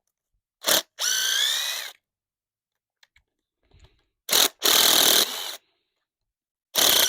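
Power drill/driver run three times in short bursts, each a quick blip and then about a second of motor whine that sags and rises in pitch, as fasteners are backed out of the concrete forms to strip them.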